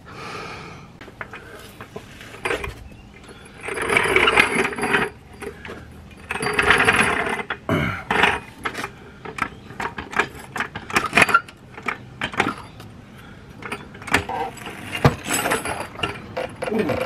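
Hydraulic floor jack being set under a motorcycle's rear suspension linkage and worked to compress the rear shock: a run of metal clicks and clanks, with two noisier stretches of about a second each early on the way.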